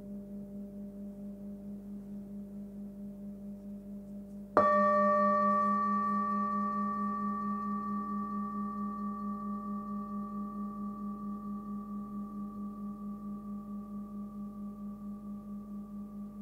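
Hand-forged 19 cm singing bowl with a 199 Hz (G) fundamental, its low tone ringing on with a steady wavering beat, a few pulses a second. About four and a half seconds in it is struck again: a sharp strike that brings out bright higher overtones, one high ringing partial carrying on and fading slowly over the low hum.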